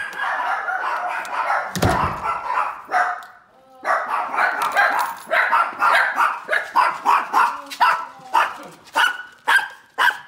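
Small dogs barking and yipping excitedly in greeting, with a heavy thump about two seconds in, then a quick run of short sharp barks, two or three a second.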